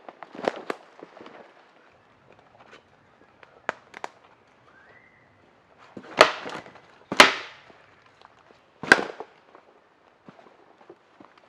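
Sharp cracks of dry wood as branches are worked by hand: a few light clicks, then three loud cracks about a second apart in the second half.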